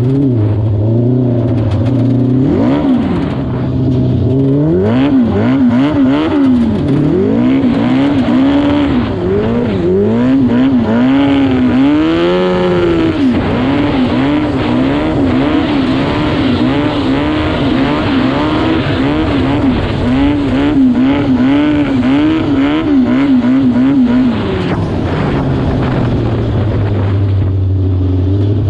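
Yamaha R6 600cc inline-four engine in a homemade ride-on lawn mower, revving up and down over and over, with one longer rise and fall about twelve seconds in. Near the end it drops back to a lower, steadier note.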